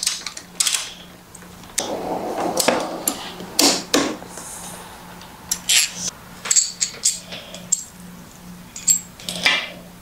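Torque wrench and socket working a motorcycle's steering stem nut: scattered sharp metallic clicks and clinks with a few short scraping noises.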